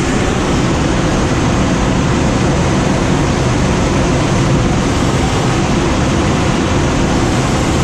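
Steady rush of air streaming past a glider's cockpit and canopy in unpowered flight, an even, unbroken noise.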